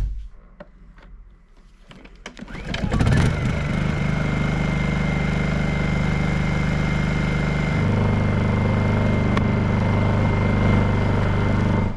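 Honda EU2000 inverter generator's small single-cylinder four-stroke engine starting up about three seconds in, then running steadily. About eight seconds in its engine note changes to a lower, stronger hum.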